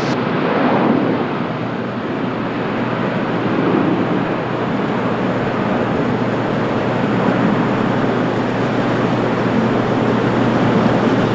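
Boeing 787-9 Dreamliner jet engines at takeoff thrust on departure, a loud, steady rushing noise with no sudden changes.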